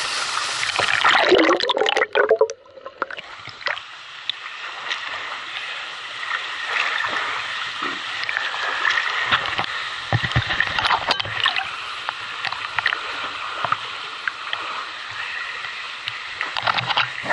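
Water splashing and sloshing at the surface around a swimmer's camera held at the waterline, with the swimmer's strokes. About two and a half seconds in the sound drops away and goes dull for a moment, then steady lapping with small splashes and clicks carries on.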